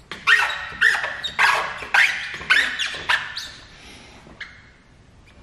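Squeegee squeaking as it is pushed across wet paint protection film on a painted steel bumper: a quick run of short squeaks that die away after about three and a half seconds.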